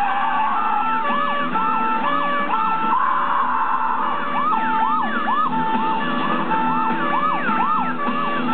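Police sirens during a car chase. A two-tone siren steps back and forth between a high note and a lower one, and a second siren overlaps it, sweeping up and down in quick arcs. Both are heard through a television's speaker.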